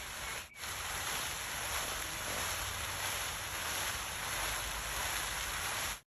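Fountain jets spraying and splashing down into their pool: a steady rushing hiss with one brief dropout about half a second in.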